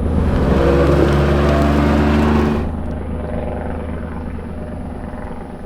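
Utility vehicle's engine pulling away, rising in pitch as it speeds up, then easing off about two and a half seconds in and running quieter as it slows.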